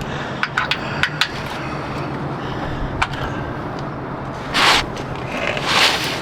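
A few light clicks and taps, then two short scrapes about four and a half and six seconds in, as a plastic oil drain pan and tools are handled on the pavement.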